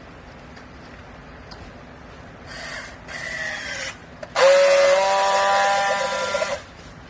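Hydraulic baler working: a quieter whine with falling pitch, then a loud steady high whine that starts abruptly, lasts about two seconds and cuts off.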